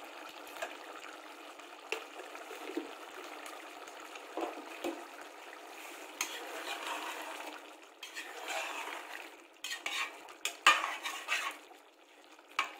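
Steel spoon stirring thick potato curry in a metal pressure-cooker pot, scraping and knocking against the pot's sides at irregular moments, the loudest knocks about ten and a half seconds in. Underneath is a steady faint sizzle of the curry simmering as it cooks down.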